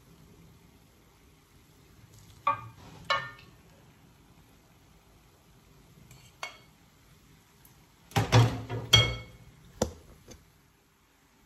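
Spatula scraping and knocking against a wok and a bowl as fried rice is scooped out: a few separate clinks, then a dense run of scrapes and knocks about eight to nine seconds in.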